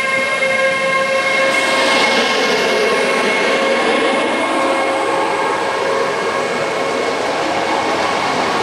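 Freight train of open coal wagons rolling past close by, with a continuous noise of wheels on rail. In the first couple of seconds a steady whine from the passing electric locomotive fades.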